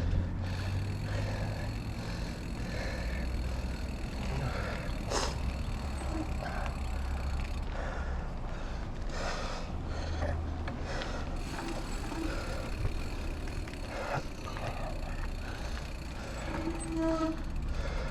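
Kona mountain bike rolling along a dirt trail, with a steady rumble and frequent small rattles and knocks, and a short squeak near the end. The rider's heavy breathing comes through.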